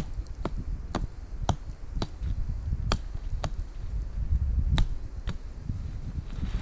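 Dry twigs snapping off a dead tree by hand, a sharp crack every half second or so in short runs, over low wind rumble on the microphone.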